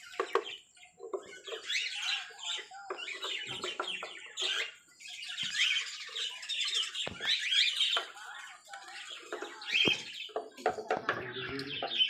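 Many small birds chirping and chattering busily and without pause, with two sharp knocks in the second half.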